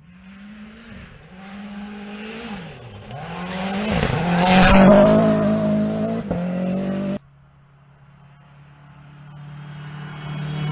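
Turbocharged Toyota Yaris rally car engine revving up and down as the car approaches and passes close by, loudest about halfway through. It cuts off suddenly, and a second pass of the car builds up near the end.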